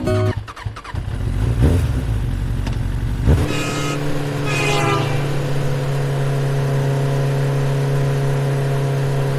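Vehicle engine revving up with a rising pitch, then running steadily at a constant pitch.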